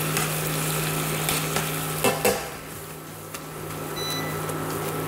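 Spinach and cream sizzling as they reduce in a stainless steel frying pan on an induction hob, with two sharp clacks of metal tongs against the pan about two seconds in. The sizzle then quietens as the pan comes off the heat, and a brief faint beep sounds about four seconds in.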